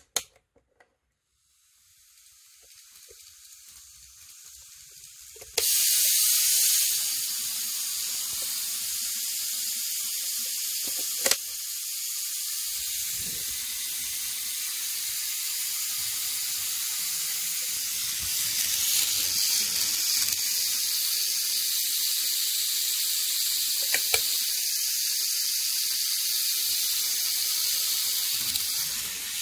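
KATO KiHa 82 N-gauge model train running on its track: a steady high hiss of motor and wheels with a faint low hum. It starts faint, jumps suddenly louder about five seconds in and holds there, with a couple of single clicks.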